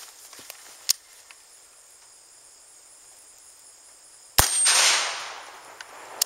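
A single 5.56 mm M193 shot from a short-barreled AR-15 rifle about four seconds in: a sharp crack followed by an echo that dies away over about a second. A smaller sharp click sounds about a second in.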